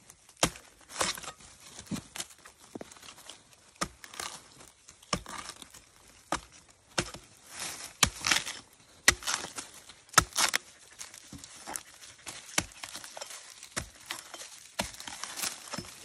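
Machete chopping and prying into a young bamboo shoot: irregular sharp chops about once a second, with the fibrous flesh and sheaths tearing and splitting between strokes.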